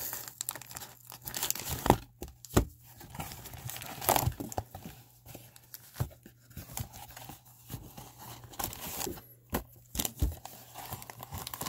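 A 1987 Fleer baseball wax box being opened and its wax-paper packs lifted out and stacked: cardboard and wax paper rustle and crinkle, with tearing sounds and several sharp knocks of packs and cardboard.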